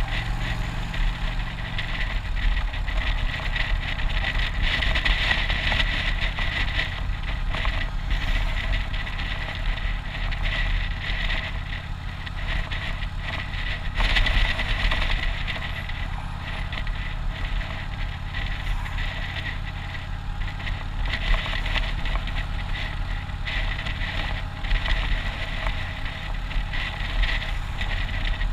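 Keeway motorcycle's engine running at road speed, with wind rushing over the bike and a low rumble throughout; a steady low engine note drops away about two seconds in.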